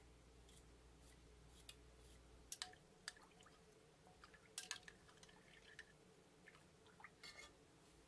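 Near silence with a few faint, sharp clicks and small wet sounds from a knife moving peeled burdock root pieces in a glass bowl of water, the clicks clustered a few seconds in and again near the end.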